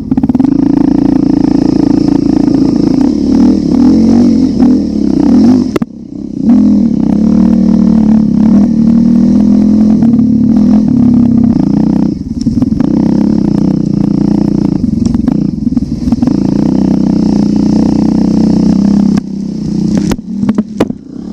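Motorcycle engine running under way, its note shifting up and down, with brief drops in level about six and twelve seconds in and a choppier stretch near the end.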